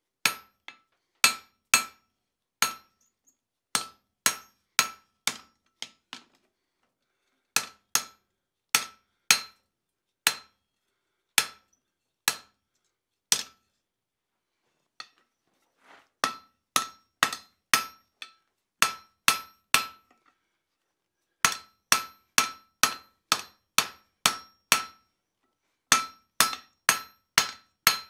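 Cross-peen hand hammer striking a red-hot steel fire-poker bar on an anvil, in runs of several blows about one to two a second with short pauses between runs. Each blow rings with a clear steady anvil tone.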